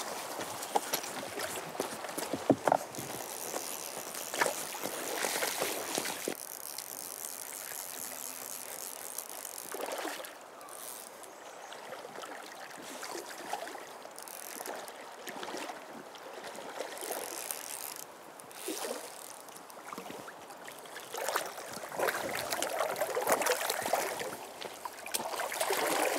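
River current running over shallows, with irregular splashing from a person wading in rubber hip boots. The splashing grows louder in the last few seconds as the wader reaches into the water to land a hooked Atlantic salmon.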